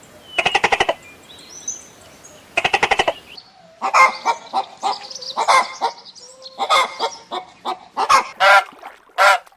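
Birds calling: two short calls made of quick rattling pulses, then from about three and a half seconds a busy run of short, loud calls, several overlapping.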